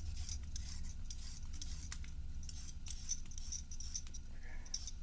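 Hand-held vegetable peeler scraping along a vegetable in quick, short strokes, several a second and unevenly spaced, over a steady low hum.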